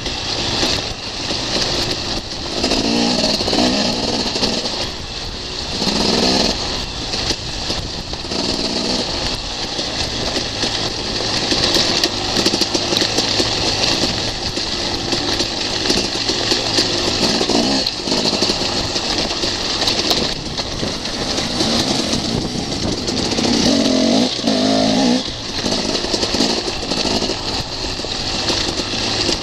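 Enduro motorcycle engine running onboard on a rough gravel track, swelling with the throttle several times, with knocks and rattles from the bike over the stones.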